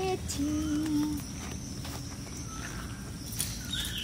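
Forest ambience with a steady high insect drone. Near the start a low, drawn-out call lasts about a second, and a few short bird calls come near the end.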